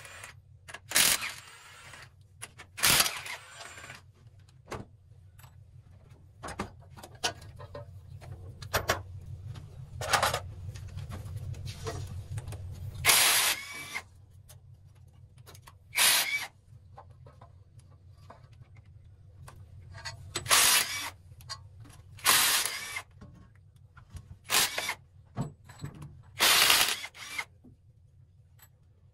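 Power impact wrench run in about a dozen short bursts with pauses between, loosening bolts during engine teardown, over a steady low hum.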